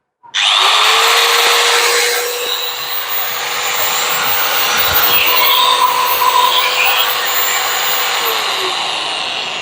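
Crown CT13410 600-watt angle grinder switched on and run free: it spins up almost at once to a steady whine, then near the end the pitch falls as it is switched off and winds down.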